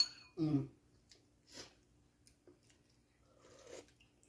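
Quiet table-eating sounds: a spoon clinks once against a ceramic bowl with a short ring at the start, a brief falling voice sound about half a second in, then faint chewing and soft handling noises.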